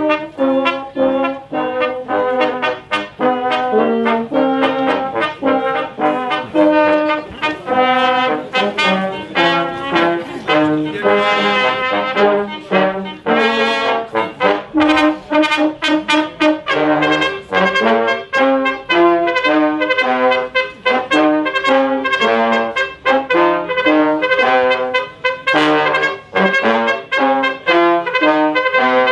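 A small wind ensemble of trombones, a tenor horn, a trumpet and a clarinet playing a tune with quick, evenly stepped notes.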